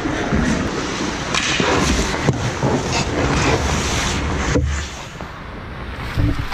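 Hockey skates scraping and carving the ice close by, with scattered sharp knocks of a stick and goalie pads striking the ice.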